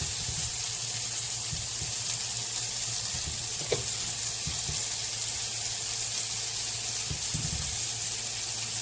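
Steady sizzle of food frying on the stove, with a light click about four seconds in.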